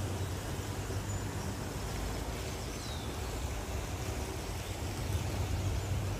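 Steady low outdoor background rumble, with a faint short high chirp about three seconds in.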